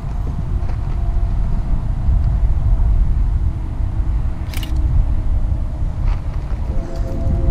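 Wind buffeting the microphone in a steady low rumble, with one short click about four and a half seconds in. Music with held tones fades in near the end.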